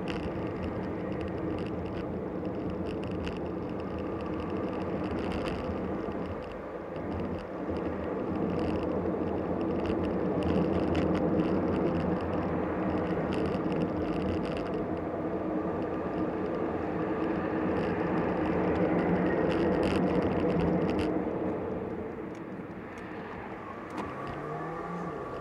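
Car driving on city streets, heard from inside the cabin: a steady rumble of road and engine noise that grows louder in the middle as the car speeds up, then quietens near the end as it slows.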